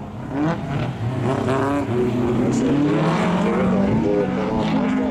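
Historic rallycross cars' engines revving hard as they race on the circuit, several engines overlapping, their pitch rising and falling.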